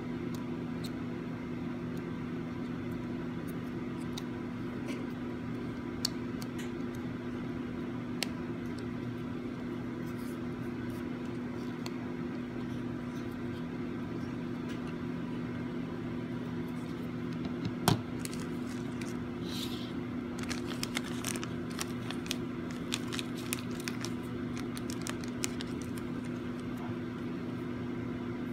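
Small clicks and taps from a dashcam's small parts being handled during reassembly, scattered and light, with one sharper click about two-thirds of the way in and a run of quick small clicks after it, over a steady electrical hum.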